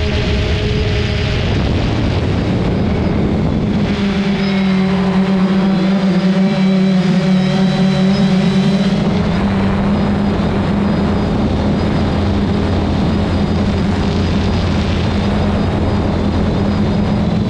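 Quadcopter drone's propellers whirring in a steady, loud hum, its pitch shifting slightly between about four and nine seconds in.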